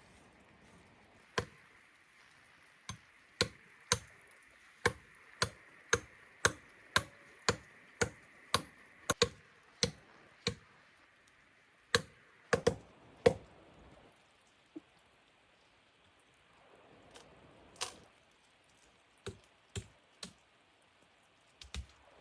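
Repeated sharp chopping blows from a hand tool, evenly at about two a second for several seconds. After a pause comes a quick cluster of harder strikes, then a few scattered lighter knocks.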